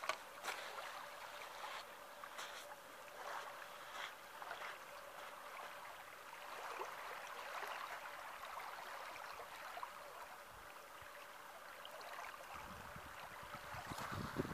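Small waves lapping at a sandy lakeshore, a soft uneven wash, with a few faint clicks scattered through it.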